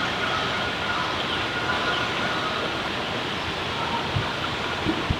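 Steady rushing of a spring creek's flowing water, with a couple of short low thumps near the end.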